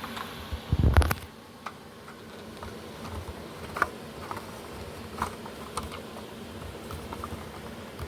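Plastic smoke detector housings being handled and twisted off their mounting plates: a heavy clunk about a second in, then scattered light plastic clicks and taps.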